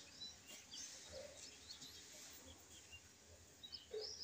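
Near silence, with faint, scattered bird chirps in the background.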